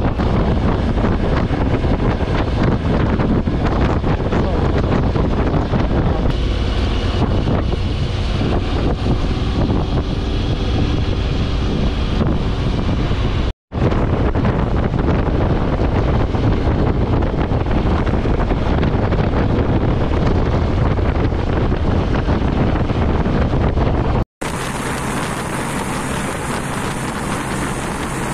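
Wind rushing over the microphone of a camera riding on a moving motorcycle, with road and engine noise underneath. The sound cuts out briefly twice, and after the second break it turns into a quieter, steadier vehicle road noise.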